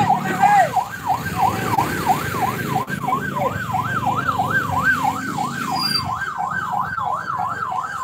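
A siren wailing rapidly up and down, about three sweeps a second without a break, over a steady low rumble.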